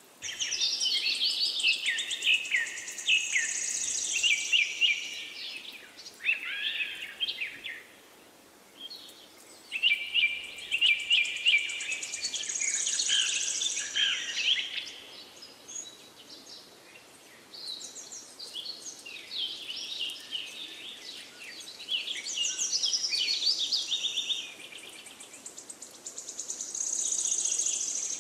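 Small birds chirping and singing in high phrases of quick trills and short rising and falling whistles, coming in bursts a few seconds long with brief lulls between them.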